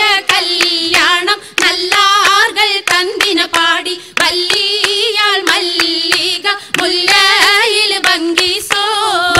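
Oppana dancers' hand claps in quick rhythmic clusters, over a voice singing a Malayalam Mappila wedding song with a wavering, ornamented melody.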